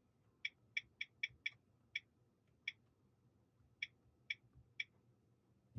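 Volvo Sensus infotainment touchscreen keyboard clicking as letters are typed: about ten short, high clicks at an uneven typing pace. A brief low thump comes right at the end.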